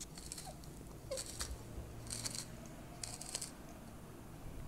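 Wooden pepper mill being twisted by hand, grinding pepper in four short rasping bursts about a second apart.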